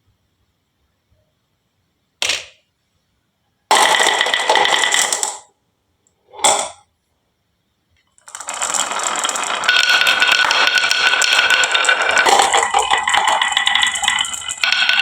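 Marbles rolling and clattering along a wooden HABA marble run. Three short runs of rattling come about two, four and six and a half seconds in, then a continuous clatter from about eight seconds in.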